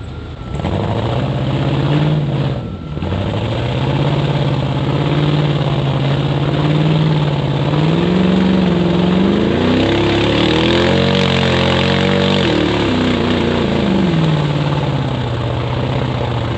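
An off-road vehicle's engine revving in surges, climbing to a high rev held for a few seconds past the middle, then dropping back to a lower steady speed. A rushing hiss swells along with the high rev.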